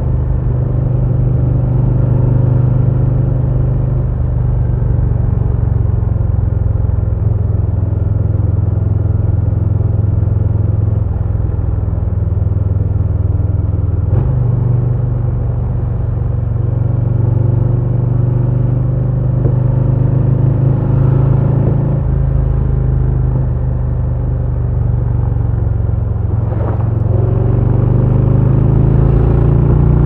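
2022 Harley-Davidson Low Rider S's Milwaukee-Eight 117 V-twin running on the road as the bike is ridden, a steady low rumble. The pitch shifts about halfway through, the sound eases off a little later on, then rises again near the end as the bike accelerates.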